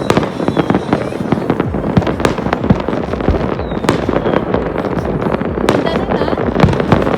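Many fireworks going off at once: a dense, continuous run of overlapping sharp bangs and crackles.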